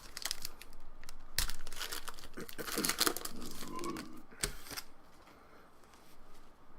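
Wrapper of a hockey trading-card pack crinkling and tearing as the pack is opened. The crackling is busiest for about the first five seconds, then dies down to quieter handling.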